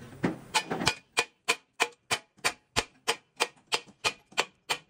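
Hammer striking steel in quick, even blows, about three a second, each blow ringing briefly.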